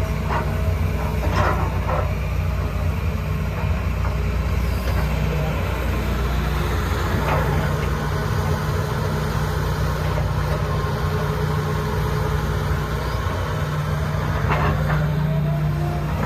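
Hitachi ZX225US LC-6 excavator's diesel engine running at a steady speed, with a few brief higher-pitched sounds on top.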